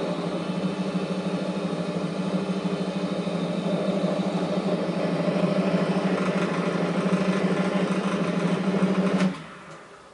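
Quantum D17 Pro bench drill press, its 500 W single-phase motor and pulley drive running with a steady hum. About nine seconds in it is switched off and winds down quickly.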